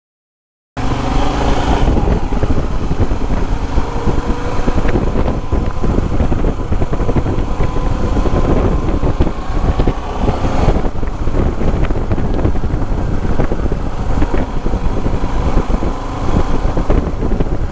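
Royal Enfield Himalayan's 411 cc single-cylinder engine running through an aftermarket Devil Evo slip-on exhaust, starting suddenly about a second in and then steady and loud.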